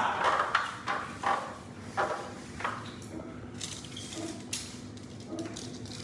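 Feet stepping up a stepladder, a series of about six clunks over the first three seconds, then quieter rasps and ticks of handling against the wall over a steady low room hum.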